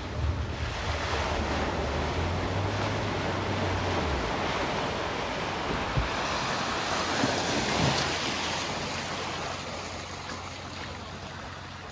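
A vehicle driving through a flooded ford: a rush of splashing, spraying water that swells to a peak about seven or eight seconds in and then fades. A low hum sits underneath for the first four seconds.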